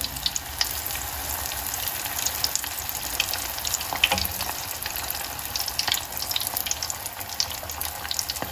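Spring rolls deep-frying in a small saucepan of hot oil during their first fry: a steady bubbling sizzle with many sharp crackles and pops spattering through it.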